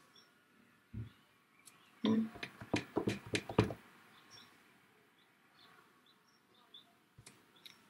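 Clear acrylic stamp block set down and pressed onto paper on a desk. One knock comes about a second in, then a quick run of knocks and taps lasts from about two to nearly four seconds in, and a faint click follows near the end.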